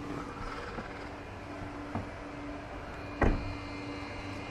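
Getting out of a parked car: a car door shuts with a single thump about three seconds in, over a faint steady tone.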